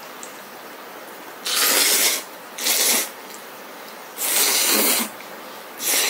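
A person slurping kalguksu noodles off chopsticks: four slurps, each under a second, the first about a second and a half in.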